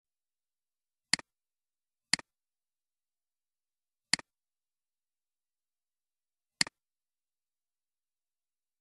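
Four computer mouse clicks, each a quick double click of button press and release: about a second in, a second later, two seconds after that, and once more about two and a half seconds later.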